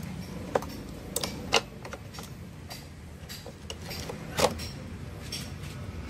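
Irregular clicks and knocks of plastic and metal parts being handled on a washing machine's drain valve assembly, the loudest about four and a half seconds in, over a low steady hum.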